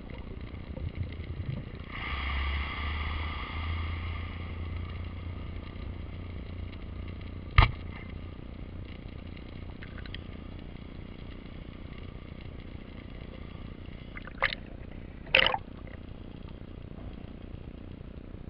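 Underwater noise picked up by a submerged camera, with a boat motor's low hum and steady whine carried through the water for several seconds starting about two seconds in. Three sharp knocks cut through it: a loud one about seven and a half seconds in, and two more about a second apart later on.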